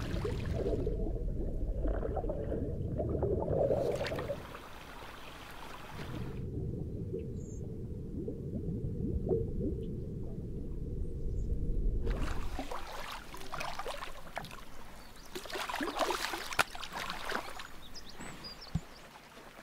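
Muffled underwater sound of moving water, deep and dull with no high end. After about twelve seconds it gives way to open-air water noise with bursts of splashing and a couple of sharp clicks.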